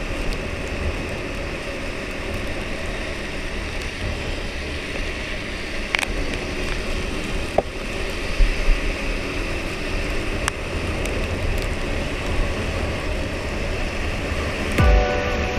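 Husqvarna Svartpilen 401 on its stock exhaust being ridden in the rain: a steady rush of wind and wet road noise over a low engine rumble, with a few sharp ticks. Music comes in near the end.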